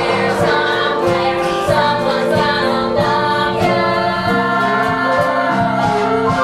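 Stage musical number: a group of voices singing together over instrumental accompaniment with a steady beat.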